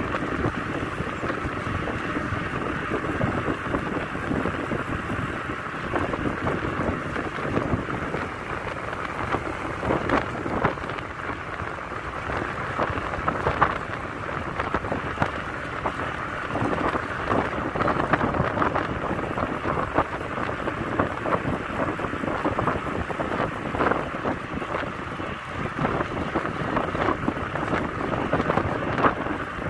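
Wind buffeting the microphone of a bicycle in motion, a steady rough rushing with irregular gusty spikes, over the low rumble of bicycle tyres rolling on asphalt.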